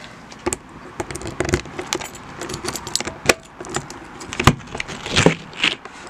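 A bunch of keys jangling and clicking against a caravan door's lock as a key is fitted and worked in it, with a string of sharp clicks, the loudest a few at irregular intervals.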